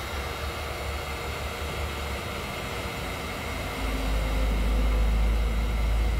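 Electric heat gun running steadily, a hiss of blown air. A low rumble of highway traffic swells about four seconds in and stays loud.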